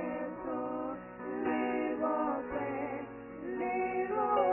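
Live gospel music: a group of women singing together in harmony into microphones, backed by a band with keyboard, bass guitar and drums.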